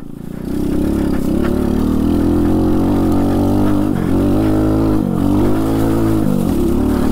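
Trailmaster TM29 pit bike's small four-stroke engine running hard under throttle off-road, with a few brief dips in pitch in the second half as the throttle eases and picks up again.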